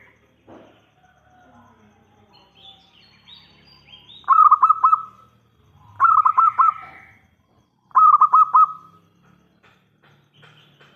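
Zebra dove (perkutut) cooing: three phrases of quick, rolling repeated notes, each under a second long and about two seconds apart.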